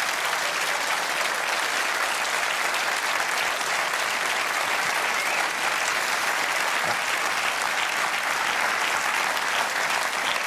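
Audience applauding: dense, even clapping that holds steady throughout.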